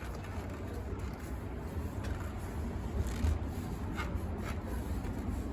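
Hands working a skinny road-bike tire bead and tube up onto the rim: faint rubber rubbing with a few light clicks, over a steady low hum.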